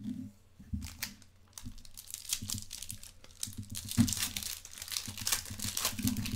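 Foil trading-card pack wrapper crinkling and tearing as a Panini Select Soccer hobby pack is handled and ripped open. The crackle starts about a second and a half in and gets denser toward the end.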